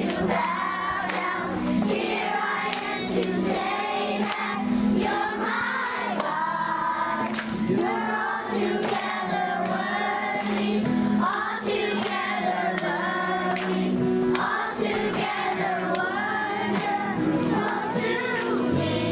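A large group of young schoolchildren singing a song together.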